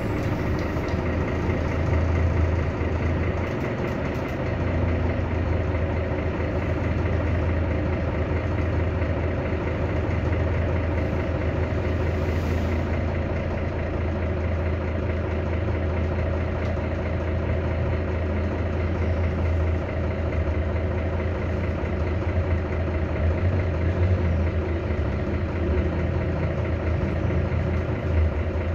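Irisbus Citelis 12 city bus engine idling steadily at a standstill, heard from inside the passenger cabin as a steady low hum.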